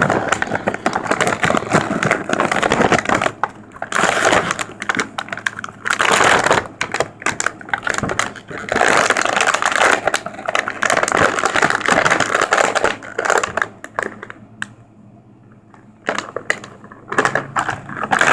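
Toy packaging being torn open and handled: crinkling plastic and cardboard with rapid crackles and clicks, in loud stretches that ease off near the end.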